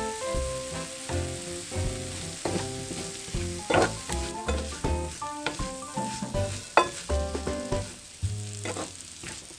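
Potato chunks sizzling in a frying pan, with sharp clicks of a spatula stirring against the pan; the loudest clicks come a little before four seconds and just before seven seconds in.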